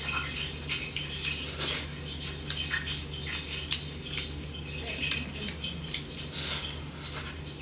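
Fingers squeezing and mixing rice with smoked pork curry by hand, a run of short wet squishes and clicks, then a handful eaten with chewing and lip-smacking near the end. A steady low hum underneath.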